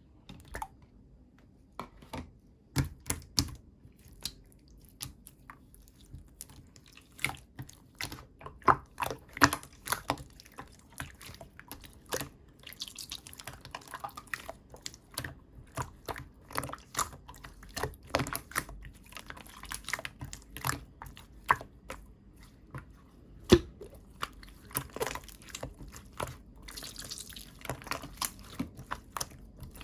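Chewy white water slime being squished and poked by hand, giving a stream of irregular wet clicks and pops.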